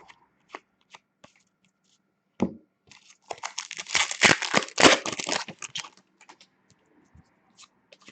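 A trading-card pack's foil wrapper being torn open and crinkled for about three seconds, after a single knock, with light clicks of card handling around it.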